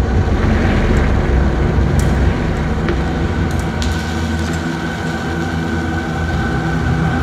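Dense granular electronic texture built from tiny, randomly reordered fragments of field and machine recordings: a heavy low rumble strewn with crackles and clicks. A steady high tone comes in about halfway through as the rumble thins.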